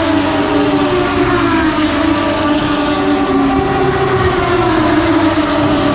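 Moto2 racing motorcycles with Triumph 765 cc three-cylinder engines running at high revs on track. Several engine notes overlap, sliding down in pitch and climbing again as the bikes change speed.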